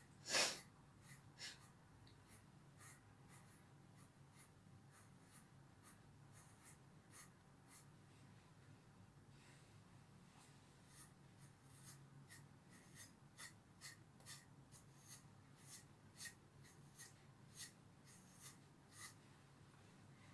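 Faint, short scratchy strokes of a grooming brush or comb pulled through a long-haired dog's coat, one louder stroke about half a second in and then strokes coming more often, about one or two a second, in the second half.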